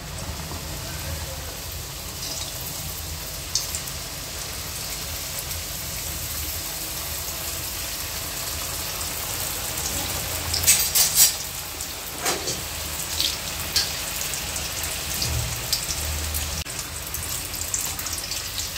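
Chicken spring rolls deep-frying in hot oil, a steady sizzling hiss of bubbling oil. A few sharp clicks and knocks come about ten to twelve seconds in, with lighter ones later.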